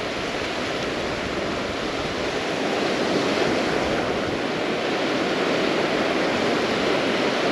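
Ocean surf washing onto the beach, a steady rush of water that grows a little louder over the first few seconds.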